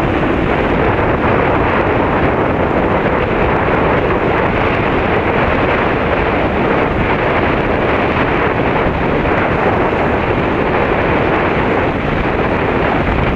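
Strong wind buffeting the microphone: a loud, steady rushing with no breaks.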